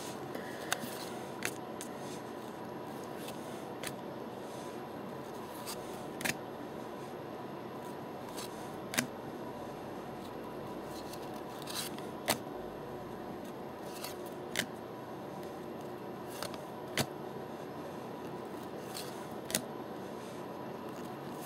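Trading cards from a booster pack being flipped through by hand, one card slid off the front of the stack to the back at a time: short, sharp card snaps and slides every second or two over a steady hiss with a faint high hum.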